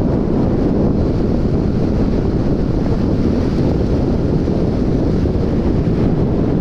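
Steady wind rush buffeting the microphone of a Yamaha FZ motorcycle riding at highway speed, a loud low roar of air with no clear engine note through it.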